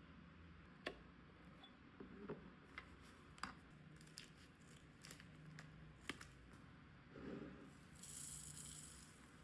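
Faint clicks and taps of a jar and packaging being handled while a tea jar is filled, with a brief rustle and then a short hissing rustle near the end.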